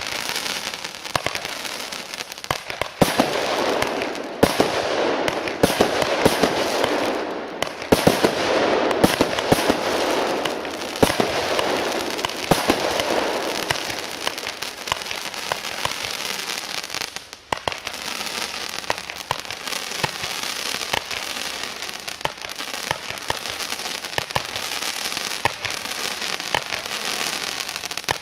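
'Glamour' consumer fireworks compound battery firing: a continuous run of shots and sharp bangs over dense crackling, with a brief lull a little past halfway.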